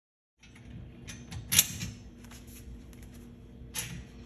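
Metal plant-rack parts handled by hand while a tier is fitted and bolted to a leg: small metal clicks and rubbing, with a sharp clink about a second and a half in and another near the end.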